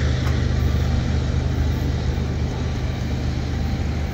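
Steady low rumble of road vehicles idling at a railroad grade crossing.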